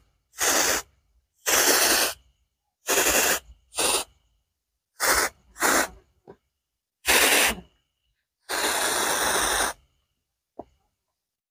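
Handheld pesticide sprayer misting in short hissing bursts, one per squeeze: eight spurts, the last lasting over a second, then a small click.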